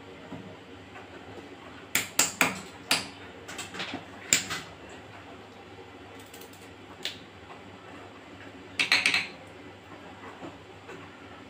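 Sharp clicks and knocks of hands handling food pieces and kitchen items on a plastic plate and a stone counter, in a few short clusters, over a steady background hiss.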